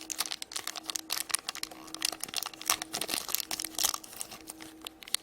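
Thin plastic packaging crinkling and crackling in irregular bursts as it is handled and opened by hand.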